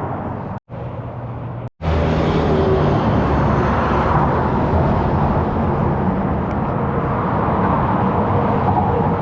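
Steady road-vehicle noise, engine and tyres, cut off briefly twice near the start and louder from about two seconds in.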